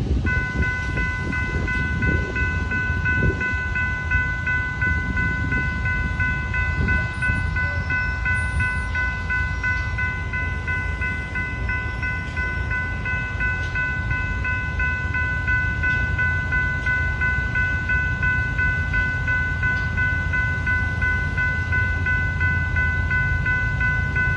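Railroad crossing warning bell starts ringing right at the start as the signals activate, and keeps ringing steadily while the gates are down, over a low rumble of wind on the microphone.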